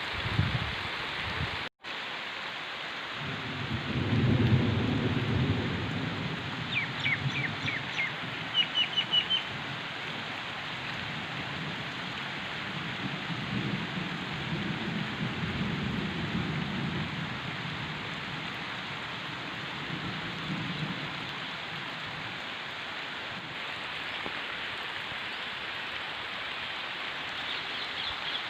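Steady rain falling, an even hiss, with low rumbling swells rising and fading several times. A bird chirps a quick run of short notes about seven seconds in.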